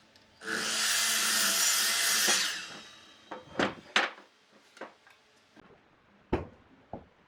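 A power tool runs on wood for about two seconds, then winds down. It is followed by several separate sharp wooden knocks, as of pieces being handled or tapped.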